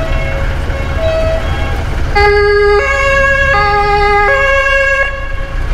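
Two-tone emergency-vehicle horn (German Martinshorn) sounding its alternating two notes: four notes, low-high-low-high, about 0.7 s each, starting about two seconds in. A fainter two-tone horn sounds briefly at the start, over a steady low vehicle engine rumble.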